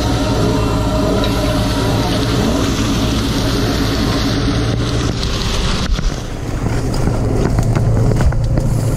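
A fishing boat's engine and deck machinery running with a steady low hum while the net is hauled aboard. From about six seconds in there is a run of short knocks and rattles from gear being handled on deck.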